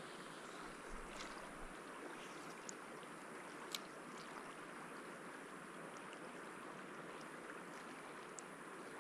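Colorado River flowing: a faint, steady rushing, with a few light clicks.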